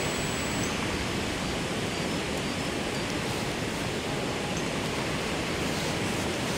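Strong gusty wind blowing across the microphone, a steady rushing noise.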